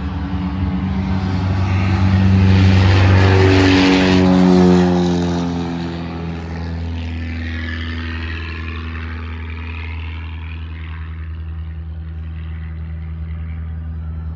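Single-engine propeller light aircraft taking off: the engine and propeller drone grows louder, drops in pitch as the plane passes about four to five seconds in, then carries on steadier and fainter as it climbs away.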